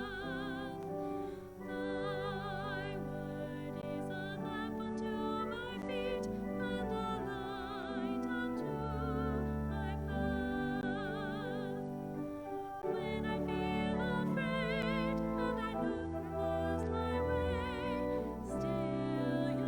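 Classical-style sacred music: a solo melody with wide vibrato over sustained low accompanying chords.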